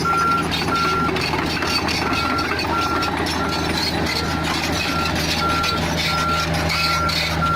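Travel/backup alarm beeping steadily, one unchanging tone about three times every two seconds, over the steady running of a Komatsu PC45 mini excavator's diesel engine.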